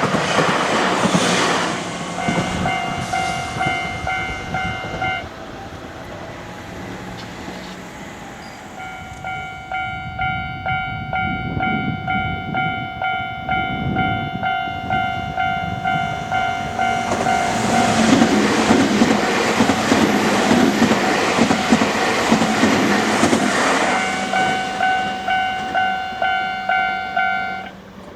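Japanese railway level-crossing warning bell ringing in regular pulsing strokes. It stops a few seconds in, starts again, and cuts off near the end. Electric trains rumble and clatter over the crossing right at the start and again through the latter half.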